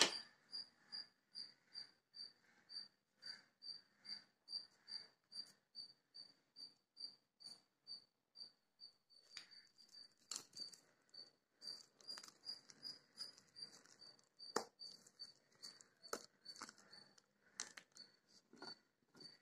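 Hands squeezing and kneading thick urad dal vada batter with chopped onions in a bowl: soft, irregular wet squelches, mostly in the second half. Throughout, a faint high chirp repeats steadily, about three times a second.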